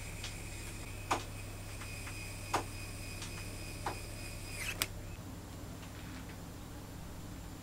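A small electric screwdriver's motor gives a faint steady high whine while driving a cap screw into a crankshaft bearing cap of a metal model V8 engine, then stops near the end. Several sharp metallic clicks come at intervals of about a second and a half, the last and loudest just as the whine stops.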